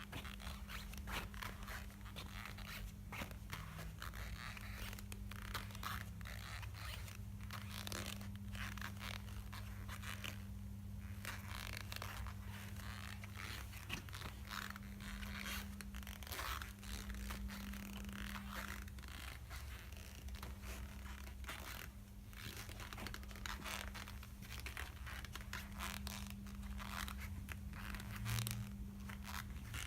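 Adidas Hamburg sneakers squealing and scraping again and again in short, quick squeaks, over a steady low hum. The squeal is one that both delivered pairs share.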